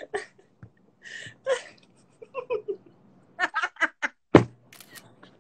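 A woman laughing in short, breathy bursts, with a quick run of laugh pulses about three and a half seconds in. A single sharp knock just after it is the loudest sound.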